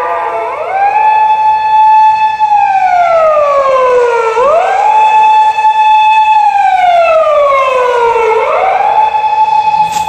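Emergency vehicle siren wailing in a slow repeating cycle, three times, about every four seconds: a quick rise, a high note held for about a second and a half, then a slow fall.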